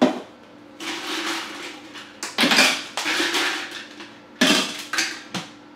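Ice cubes clattering into a tumbler in three rattling bursts, with some spilling onto the countertop.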